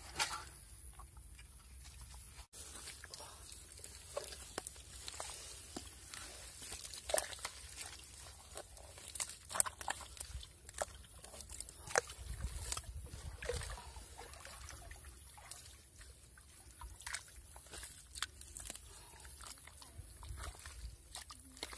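A hand and forearm groping and squelching in wet mud and muddy water in an eel hole, with irregular wet slops, splashes and small clicks.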